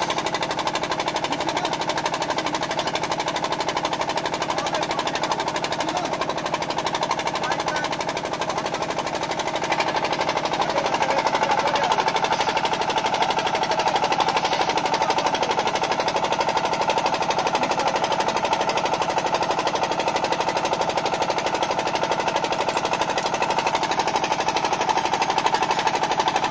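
Engine of a portable core-drilling rig running steadily with a fast, even knock, a little louder from about ten seconds in.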